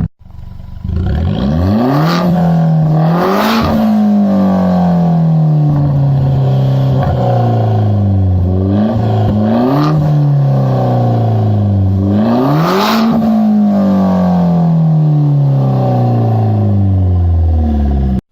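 Straight-piped BMW 1 Series F20 petrol engine being free-revved with no mufflers. About a second in the revs climb to a peak, then fall back slowly. Two quick blips come near the middle, and a last rev near the end sinks slowly until the sound cuts off.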